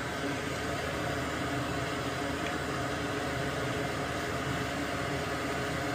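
A steady, even whir like a small fan or blower running, with no distinct clicks or knocks.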